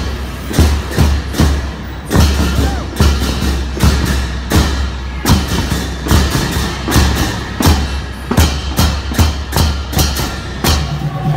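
A percussion troupe playing drums: loud, sharp strikes about twice a second in an uneven beat over a deep steady drone.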